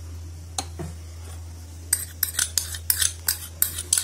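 Steel spoon scraping and tapping against a small glass bowl, scraping ghee out into the batter. Two clicks about half a second in, then from about two seconds in a quick run of sharp clinks, about four a second.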